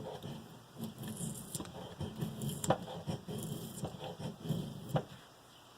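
Knife blade scraping and shaving a piece of resinous Doug fir fatwood in a run of short, irregular strokes, with a few sharper clicks.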